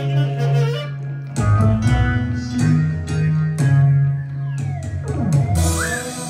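Live band music: guitar chords ringing over a steady bass line, with short sharp strikes throughout.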